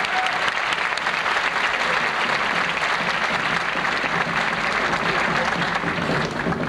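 Audience applauding steadily, thinning near the end.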